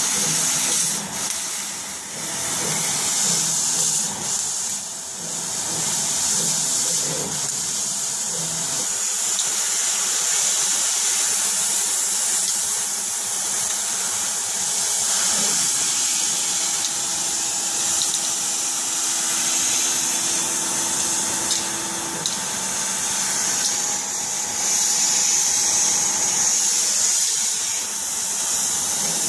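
CO2 laser cutting machine running as it cuts wood: a steady hiss of air at the cutting head, with a faint motor hum underneath.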